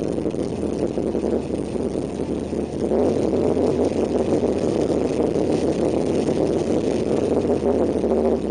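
Engine of a carbureted 1989 Chevrolet S-10 drag truck idling, heard from inside the cab; the rumble gets a little louder from about three seconds in.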